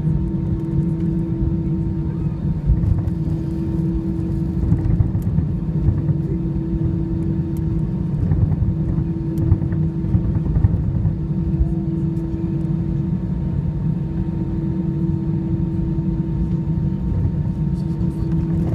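Cabin noise of an Airbus A320-214 taxiing, heard from a window seat over the wing: a steady low rumble from its CFM56 jet engines and the rolling wheels, with a steady hum held over it.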